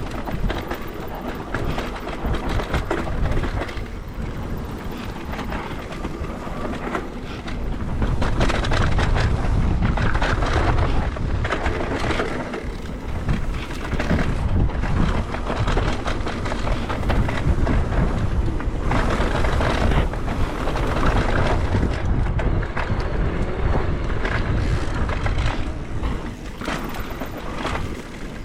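Wind rushing over the microphone and tyres rolling on a dirt trail while riding a mountain bike, growing louder about eight seconds in.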